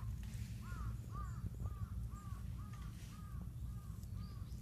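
A quick series of short, evenly repeated animal calls, about two or three a second, growing fainter toward the end, over a steady low rumble.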